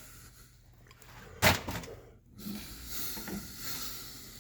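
One sharp knock about one and a half seconds in, with fainter handling noise after it.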